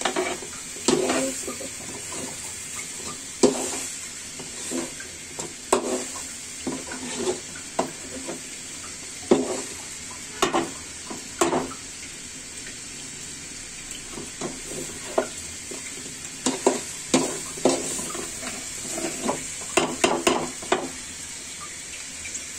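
Spiced chicken and potatoes sizzling in oil in a metal pan on a gas burner, being fried down (bhuna) while a long metal utensil stirs them, scraping and knocking against the pan at irregular intervals.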